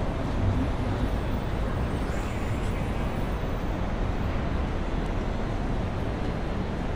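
Steady low rumble of city street traffic, with no single sound standing out.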